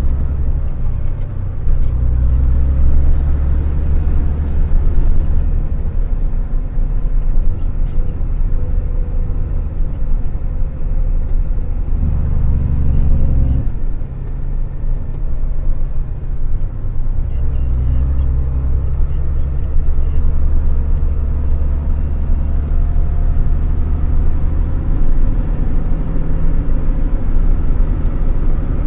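Logging truck's diesel engine heard from inside the cab, a steady low drone under driving. Its pitch changes about halfway through, it eases off briefly, then it pulls hard again.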